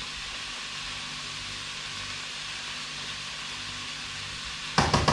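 Diced pork belly sizzling steadily in a frying pan, with a short clatter of sharp knocks near the end.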